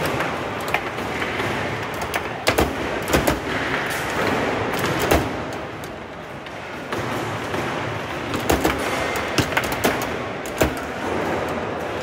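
Foosball match play: the ball struck by the plastic figures and the rods clacking, heard as sharp, irregular knocks over steady background noise.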